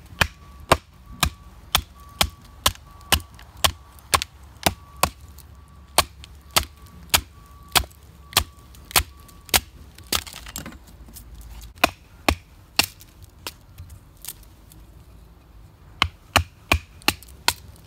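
Batoning: a wooden baton striking the spine of an ESEE RB3 knife to drive it through a piece of wood and split it, sharp knocks about two a second. The strikes pause about halfway through, resume briefly, then come faster near the end.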